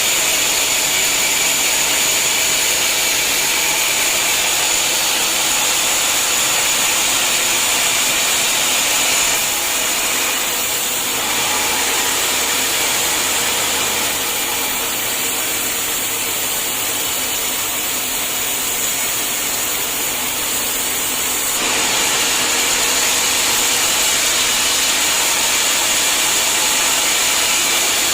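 Sawmill saw running steadily through a hard acacia log, with a high steady whine over the cutting noise. The sound eases a little between about ten and twenty-two seconds in, then returns to full strength.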